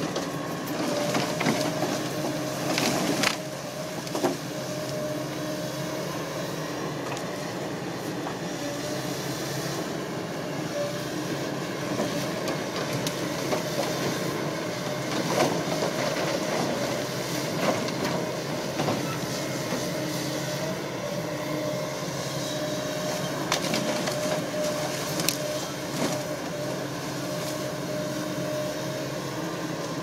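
JCB JS200 LC excavator's diesel engine and hydraulics running steadily under load with a steady whine, as the log grapple works. Sharp knocks and cracks of eucalyptus logs striking one another come every few seconds.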